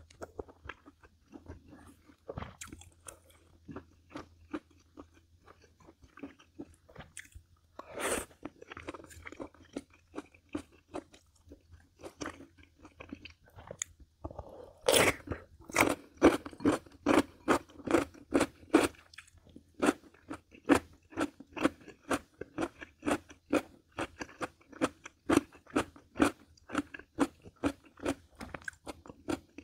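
A person chewing crunchy food with the mouth close to the microphone: scattered crunches at first, then, after a louder bite about halfway, steady crunching chews about two to three a second. A faint low hum runs underneath.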